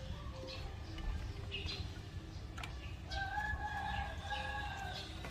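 A rooster crowing once, one long call of about two seconds in the second half, over a low background rumble with a few short chirps earlier on.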